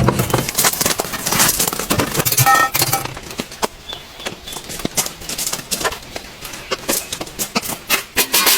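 Irregular knocks and clatter of objects being handled, with a short ringing metallic clink about two and a half seconds in.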